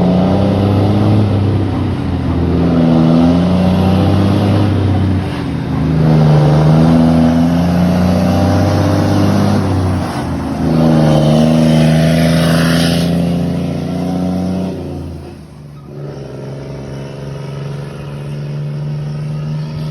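Scania truck diesel engine running loud through its exhaust, its pitch rising and falling several times as it revs. A short hiss comes about twelve seconds in, and about fifteen seconds in the engine drops to a quieter, steadier note.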